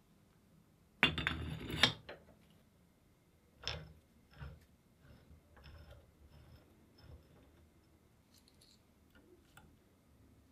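A loud burst of metal clatter and knocks about a second in, as the old cast-iron hand drill is set into a steel bench vise. Two smaller knocks follow a few seconds later, then faint light metal clicks from handling its drive chain.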